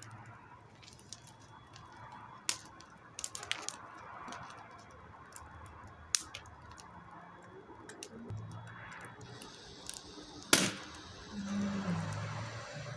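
Nail gun firing nails one at a time to tack down the edge of a wooden panel: a few sharp single shots spaced irregularly, with the loudest near the end.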